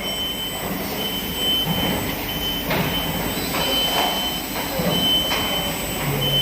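A high electronic beep repeating about once a second, each beep about half a second long, over steady workshop background noise.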